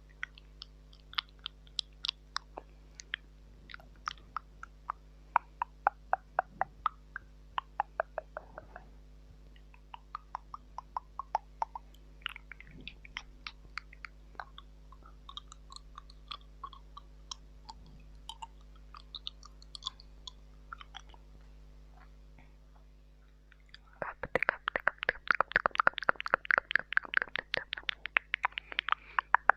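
Close-miked ASMR mouth sounds: wet tongue clicks and smacks, scattered and irregular, then a fast dense run of clicking near the end.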